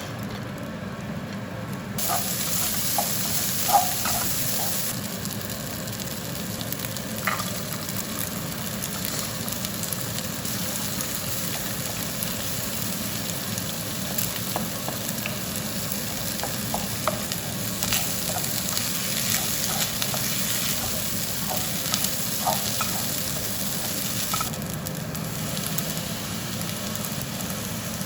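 Food sizzling in a frying pan, starting about two seconds in, with scattered small clicks and taps of a utensil stirring it.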